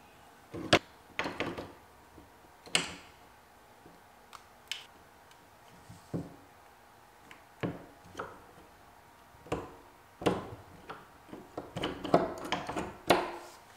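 Knuckle bender clicking and knocking against a door hinge's knuckle as it is fitted and twisted to bend the knuckle: a dozen or so sharp, scattered knocks that come closer together near the end. The bend pulls the frame-side knuckle back in line with the others so the door stops binding.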